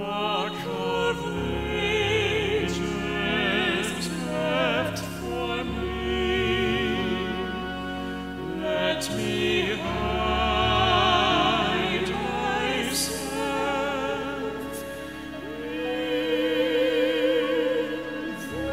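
Slow background music: a melody wavering in vibrato over low held notes.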